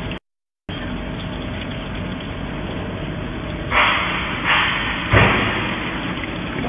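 GZP3535 CNC plate drilling machine running steadily as its spindle taps threaded holes in a metal plate under coolant spray. The sound drops out for about half a second just after the start, and around the middle three short, loud bursts of noise come about two-thirds of a second apart, the last with a thump.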